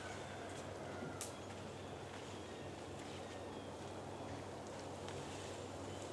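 Steady low engine hum with light outdoor ambience, a few faint high chirps and a single faint click about a second in.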